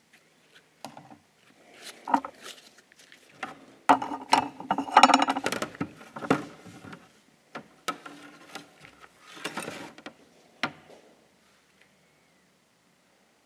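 Irregular clicks, knocks and scraping of painting tools being handled on a work table, with a dense, loudest clatter of scraping and knocking a few seconds in, then a few scattered taps before it stops.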